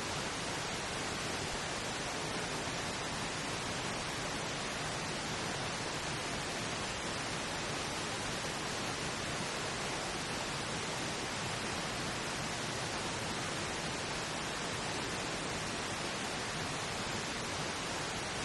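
Steady pink noise: an even, unchanging hiss, used as a masking bed for an inaudible subliminal affirmation track.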